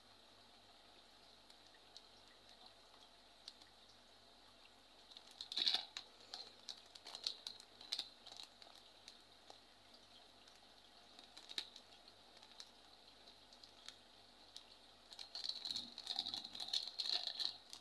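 Plastic packet crinkling as it is handled, turned over and squeezed. Quiet at first, then scattered crackles from about five seconds in, and a longer stretch of crinkling near the end.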